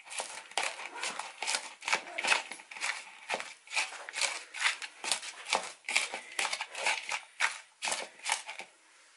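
A metal spoon mashing and scraping soaked rice-cake crumbs in a bowl: about three short, crisp scrapes a second, stopping near the end.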